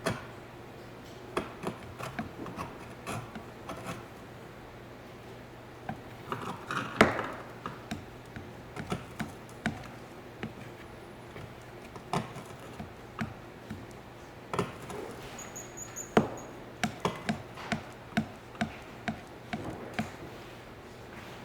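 Irregular taps, clicks and scraping of hand tools and materials being handled on a work surface, with a louder knock about seven seconds in, over a steady low hum.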